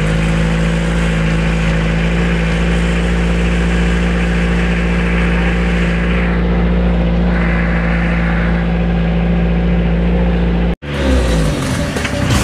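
Mitsubishi L300 pickup's engine running hard and steady at high revs under a heavy load of bricks on a climb, the engine straining. The sound cuts off abruptly near the end.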